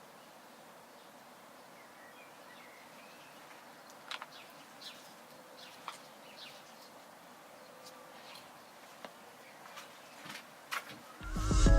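Outdoor ambience: a steady faint insect buzz with a few short, high bird chirps, and a loud low rumble near the end.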